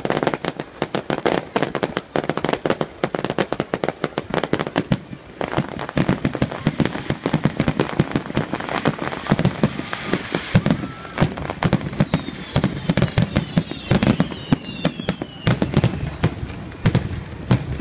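Fireworks display: a dense, continuous barrage of bangs and crackles as shells burst overhead, many reports a second.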